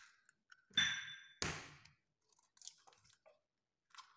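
Eggs cracked on the rim of a stainless steel stand-mixer bowl: a knock with a brief metallic ring about a second in, then a louder crack of shell half a second later, followed by a few faint clicks.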